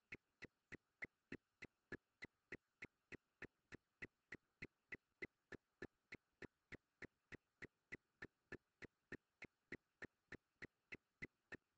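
Faint, very regular ticking: sharp single clicks about three a second, evenly spaced, over near silence.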